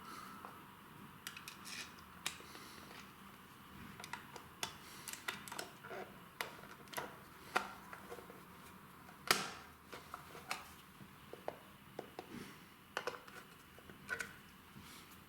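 Scattered light clicks and taps of a brushed brass light switch being handled and screwed back onto its wall box with a screwdriver, irregular, with one louder click about nine seconds in.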